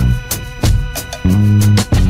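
Background music with a steady drum beat, a bass line and guitar.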